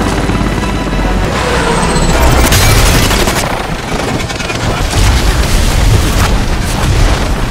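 Film sound effects of a helicopter crash: heavy booms and crashing impacts, the loudest about two and a half seconds in, over dramatic film music.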